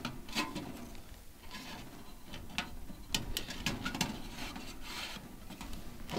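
Irregular light clicks, taps and rubbing of thin sheet metal as the stove's chimney base, with its spark arrestor and damper, is handled and fitted together.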